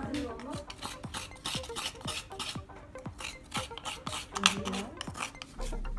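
Rhythmic rasping, scraping strokes at about four a second, as food is grated or scraped by hand in a kitchen, with one louder stroke about four and a half seconds in. Background music comes in near the end.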